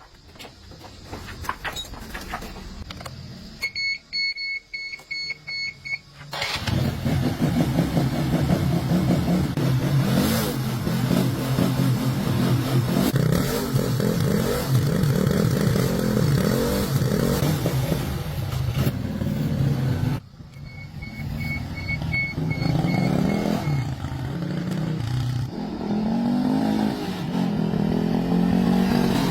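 Restored motorcycle engine starting after a series of short electronic beeps, running with its pitch rising and falling as it is revved, then cutting out about two-thirds of the way through. More beeps follow and the engine runs again, revving up and down.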